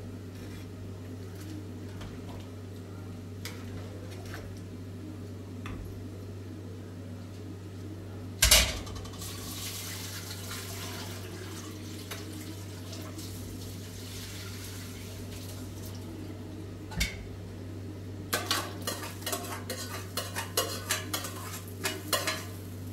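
Clatter and quick clinks of hard objects being handled, over a steady low hum: one loud clatter about eight seconds in, then a rapid run of clinks and knocks over the last few seconds.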